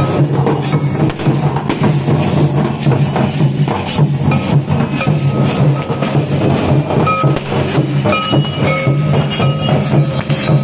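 Dhol drums beaten in a fast, unbroken rhythm, a dense stream of strokes.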